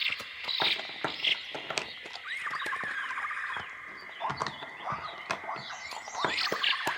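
A small animal giving short, high, squeaky chirping calls in bouts about every two seconds, over a run of light clicking and scratching sounds.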